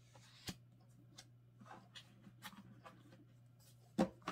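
Paper postcards and a hardcover photobook being handled on a wooden table: a sharp tap about half a second in, soft taps and rustles, then a louder knock near the end as the book is lifted. A faint steady low hum runs underneath.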